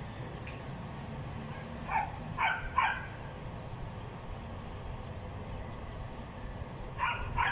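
Dog barking: three quick barks about two seconds in, then more barks near the end, over a low steady rumble.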